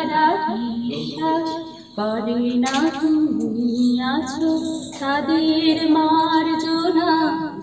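A person singing a slow, unaccompanied-sounding melody in phrases of long held, wavering notes.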